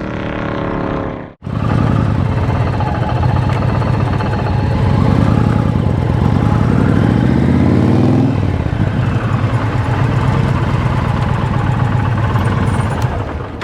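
Large V-twin motorcycle engine running with rapid, even firing pulses. The revs climb from about five seconds in and fall back near eight seconds. The sound cuts out briefly about a second and a half in.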